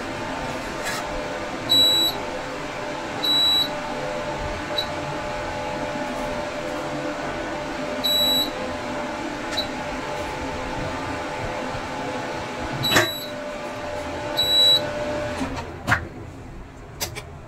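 Prestige induction cooktop running with its cooling fan humming steadily, and the unit giving about five short high beeps at irregular intervals after the pan is lifted off the coil, typical of an induction cooker signalling that no vessel is detected. Near the end there is a sharp click and the hum drops away as the cooker is unplugged.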